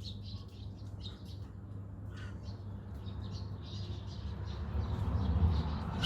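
Birds chirping, short high calls scattered throughout, over a steady low hum.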